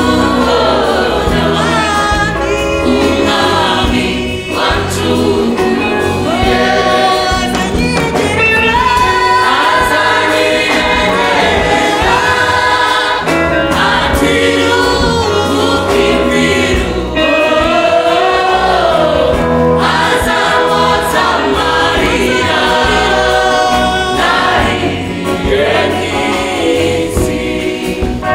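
Church choir singing a gospel song in many voices over a steady instrumental backing with a low bass line.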